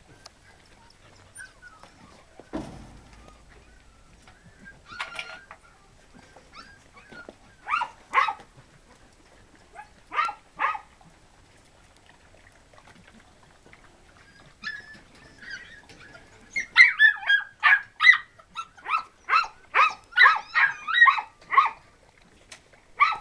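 Dogs barking: a few scattered barks, some in pairs, then a quick run of barks, about two or three a second, over the last six seconds. A dull thump comes a couple of seconds in.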